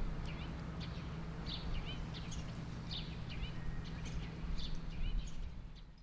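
Small birds chirping in short, repeated calls over a steady low hum, fading out at the end.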